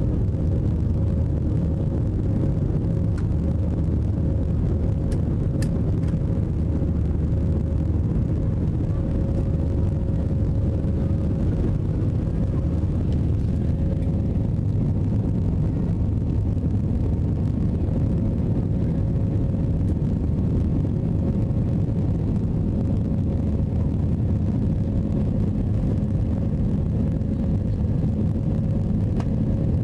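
Airbus A320 cabin noise in the climb after take-off: the engines and rushing air make a steady low rumble, with a faint steady tone above it.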